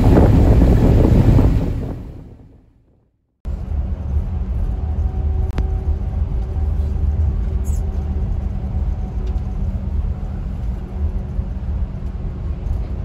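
Wind buffeting the microphone over a boat moving through drift ice, fading out in the first two seconds. After a short silent gap, the steady low rumble of a coach bus's engine and tyres follows, heard from inside the cabin as it drives along.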